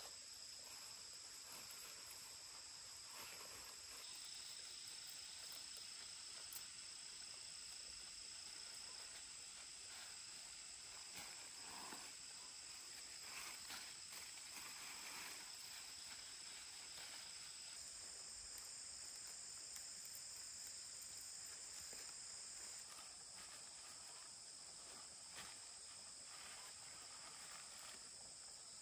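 Faint, steady high-pitched chirring of insects such as crickets, with a few soft rustles now and then.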